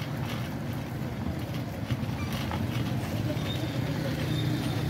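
Riding noise from a bicycle moving along a wet tarmac road: wind rushing over the microphone and tyres hissing on the wet surface, over a low hum of town traffic that grows a little louder about halfway through.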